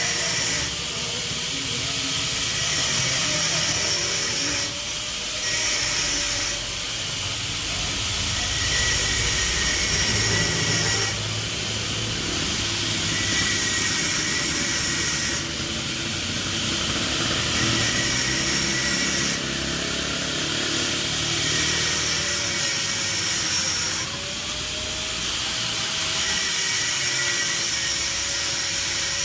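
A power tool cutting open the steel shell of a stock motorcycle muffler. It makes a loud, harsh hiss that swells and eases every two to four seconds as the cut goes on.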